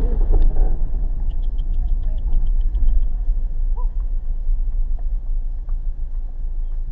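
Car driving on a wet road, heard from the dash cam: a steady low rumble of engine and road noise, with a few faint light ticks early on.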